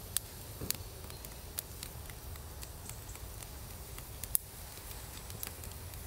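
Small wood fire in a Buschbox folding stove crackling quietly, with scattered faint pops and ticks and one sharper pop about four seconds in, over a low steady rumble.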